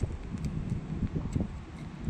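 Wind buffeting the microphone in uneven gusts, with a few faint ticks.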